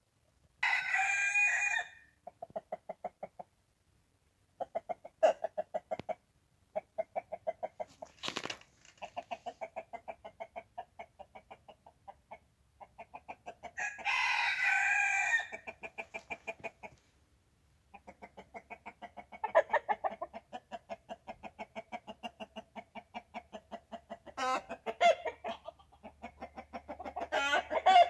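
Chickens clucking in long, quick runs of short notes, with a rooster crowing twice: once briefly about a second in and again, longer, about halfway through.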